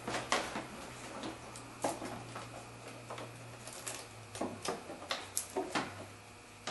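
Plastic engine air filter housing being handled as a new paper air filter is slid into the airbox: irregular clicks, taps and scrapes of plastic against plastic, over a low steady hum that fades near the end.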